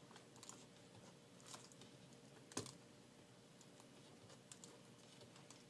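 Faint, scattered small clicks and taps of hands working on a laptop's screen panel and tape, with one sharper click about two and a half seconds in.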